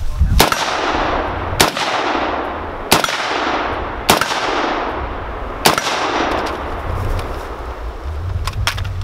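A 7.62 rifle fired five times, one shot about every second and a quarter, each shot followed by a long echo fading away. A few faint clicks follow near the end.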